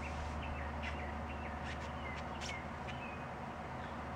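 Small birds chirping, short quick notes and little gliding calls, over a steady low hum, with a few sharp clicks around the middle.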